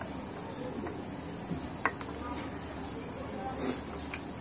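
Chicken tikka sizzling on metal skewers over a charcoal grill, a steady crackling hiss. A few sharp clicks as the skewers are handled and turned, the loudest nearly two seconds in.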